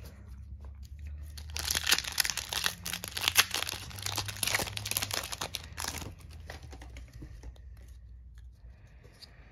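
A Magic: The Gathering booster pack's foil wrapper being torn open and crinkled by hand: a dense run of sharp crackles for several seconds, then fading to softer, scattered rustles.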